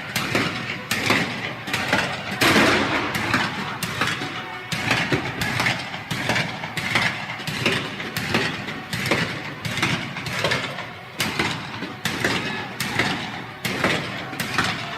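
Battlefield ambience sound effect: irregular gunshots, several a second at times, over a continuous background of combat noise.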